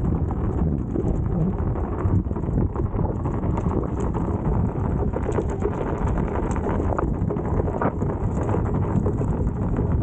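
Steady rushing, crackling noise, heaviest in the low end, with no clear events standing out: wind buffeting the microphone while riding an Inmotion V13 electric unicycle.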